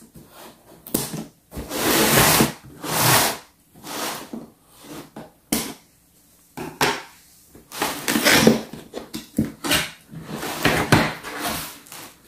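Tape seals on a cardboard toy box being cut and the cardboard flaps worked open: a series of scratchy rasps and scrapes of tape and cardboard with short pauses between them.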